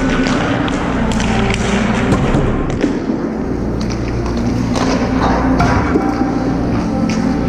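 Hockey sticks and pucks knocking and thudding on the ice in scattered sharp clacks, with skate blades scraping, over a steady low hum.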